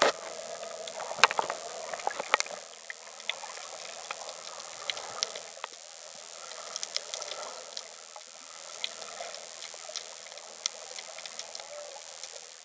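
Underwater ambience picked up by a submerged camera in seawater: a steady muffled hiss with scattered sharp clicks and crackles, over a thin constant high tone.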